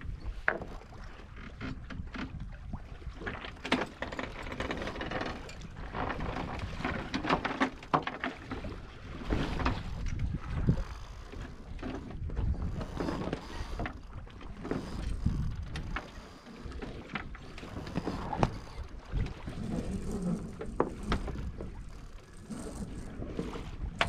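Wind and sea noise aboard a sailing yacht under way, with irregular knocks and rattles from the boat throughout.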